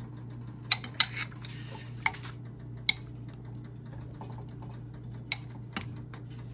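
A stainless steel ladle clinks against the sides of a black ceramic pot of chicken soup as it moves the chicken in the broth: about six sharp, irregular clinks, two of them close together near the start.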